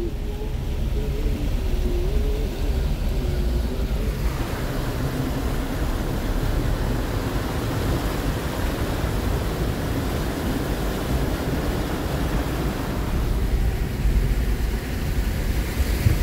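Car driving slowly through deep floodwater, heard from inside the cabin: a steady low engine and road rumble, with the rushing, splashing of floodwater against the car growing louder from about four seconds in.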